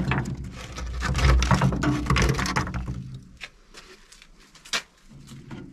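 Firewood logs and coal knocking and rattling inside the firebox of a manual solid-fuel boiler as fuel is laid in: a dense clatter for about three seconds, then a few separate sharp knocks.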